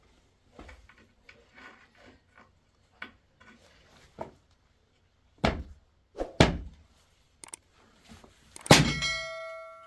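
Scattered light knocks, two heavier thuds about halfway through, then a loud metallic clang near the end that rings on in several tones for about a second before dying away.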